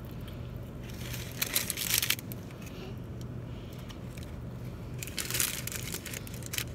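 Biting and chewing a pretzel-wrapped hot dog with a hard pretzel crust, held in a paper wrapper: two spells of crunching and crinkling, one about a second in and one near the end, over a steady low hum.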